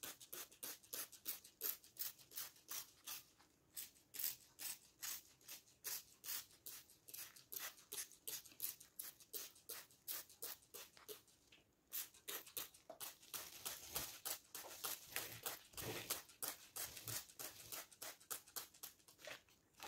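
Plastic trigger spray bottle squeezed over and over, each pull giving a short hiss of water spray, several a second with a few brief pauses, wetting freshly added potting soil.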